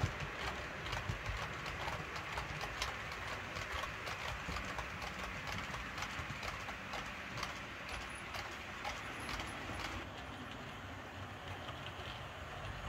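Model freight train of timber wagons rolling along the layout's track, its wheels clicking irregularly over the rail joints, several clicks a second. About ten seconds in, the clicking gives way to a quieter, steadier running noise.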